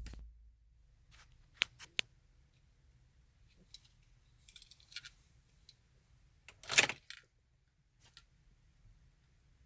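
Near silence, broken by two sharp clicks about a second and a half in and a short rattling clatter near seven seconds.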